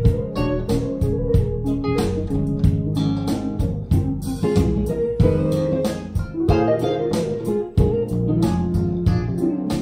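Plucked-string music with a deep bass line and quick note attacks, played back through large horn loudspeakers with 15-inch bass drivers, with 10-inch subwoofers in the setup.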